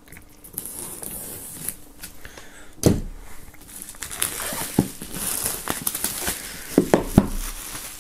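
Clear plastic shrink-wrap being torn and peeled off a cardboard box: crinkling and crackling, with a few sharp snaps, the loudest about three seconds in.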